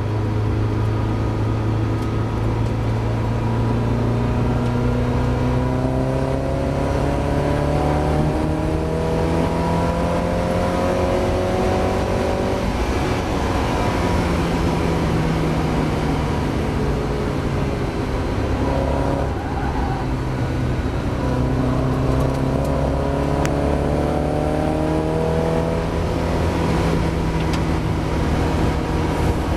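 Mazda MX-5 race car's engine heard from on board under hard acceleration, over a steady rush of wind and road noise. Its pitch climbs for the first dozen seconds, falls sharply about thirteen seconds in, then climbs again in the second half.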